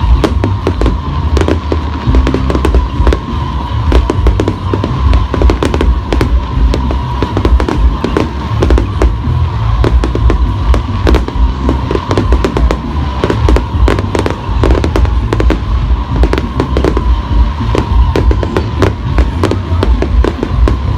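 Fireworks bursting in quick, continuous succession, many sharp bangs a second over a deep rumble, with music playing alongside.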